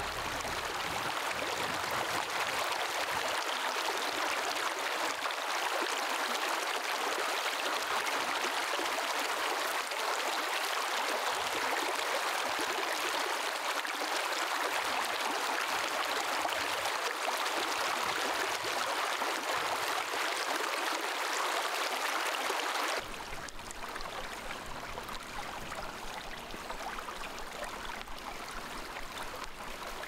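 Mountain stream running over rocks, a steady rush of water. A little over twenty seconds in it drops suddenly to a softer, quieter rush.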